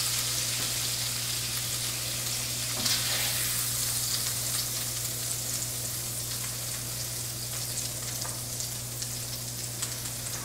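Food frying in hot oil: a steady sizzle with scattered crackles and one sharp knock about three seconds in, easing off slightly toward the end. A steady low hum runs underneath.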